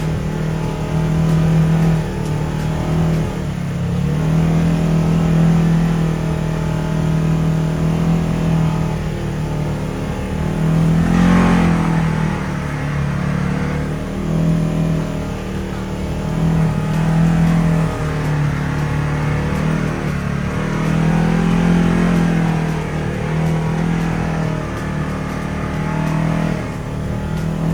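ATV engine running under way, its note swelling and easing every few seconds with the throttle.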